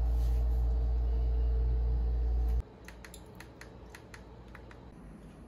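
A steady low hum cuts off suddenly about two and a half seconds in. About ten soft clicks follow over the next two seconds, buttons being pressed on the karaoke speaker's remote control.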